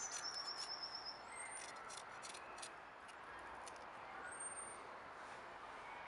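Birds singing: several short, high rising chirps and a quick trill near the start, over a faint outdoor background.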